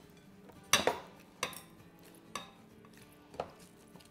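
Dough being kneaded in a glass bowl, knocking against the glass: four sharp knocks about a second apart, the first the loudest.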